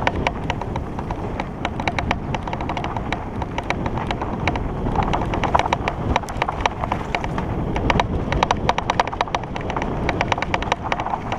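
REI Co-op 2.1 hardtail mountain bike riding fast over rough dirt singletrack: a steady clatter of irregular rattles and clicks from the bike over a rumble of wind and trail noise on the helmet camera's microphone, with grass brushing past now and then.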